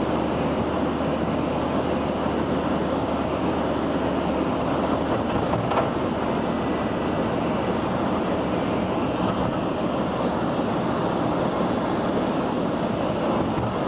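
Steady road and engine noise heard from inside a moving road vehicle, an even rumble of tyres and wind, with one brief knock a little under six seconds in.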